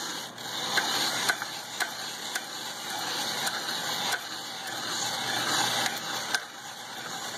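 Hand-cranked vegetable spiralizer being turned: a steady grinding with repeated clicks as the blade cuts a vegetable into noodles.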